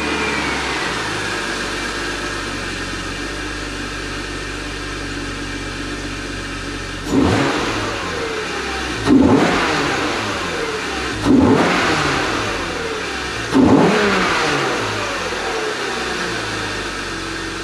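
BMW E36 M3 straight-six engine idling, its pitch easing down in the first couple of seconds, then revved briefly four times, each rev rising sharply and dropping back to idle. The newly fitted aFe cold air intake with its open cone filter gives a whoosh on the revs.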